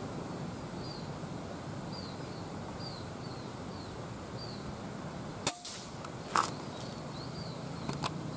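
An air rifle fires a single 4.5 mm pellet with a sharp crack about five and a half seconds in. A second sharp crack with a brief ring follows about a second later, and a few light clicks come near the end. Over a steady outdoor background, a small bird gives short falling chirps about once a second.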